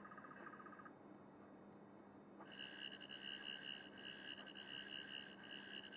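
Character Options 11th Doctor sonic screwdriver toy playing its electronic sound effects in closed mode: one pulsing electronic tone stops about a second in, then after a short pause a second, louder pulsing electronic whine starts and keeps going.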